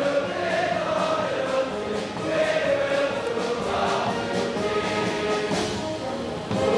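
A large group of voices singing a slow song together, with long held notes.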